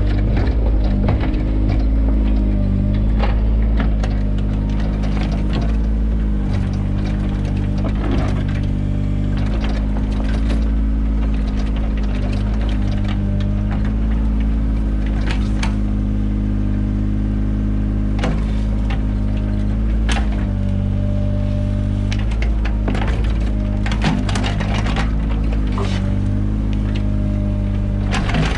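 Mini excavator engine running steadily under load, its pitch shifting slightly now and then as the hydraulics work. Scattered knocks and scrapes from the bucket digging.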